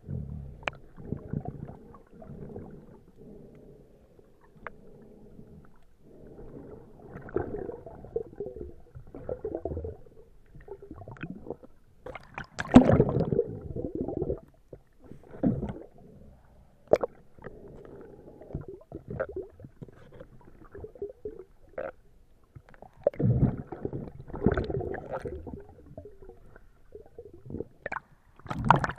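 Underwater: a diver's exhaled breath bubbling in gurgling bursts. The bursts are loudest about halfway through and again in the last third, with quieter bubbling and a few sharp clicks between.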